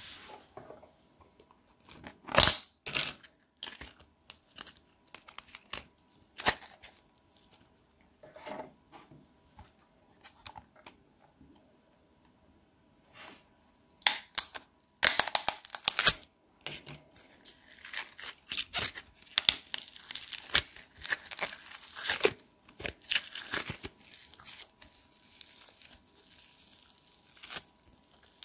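Hands working slime and clay: a few scattered sticky clicks and pops at first, then, about halfway through, dense crackling and tearing as foam-bead slime (floam) is squeezed and pulled apart. The crackling goes on almost continuously after that.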